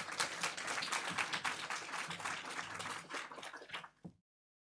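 Audience applauding, which cuts off abruptly about four seconds in.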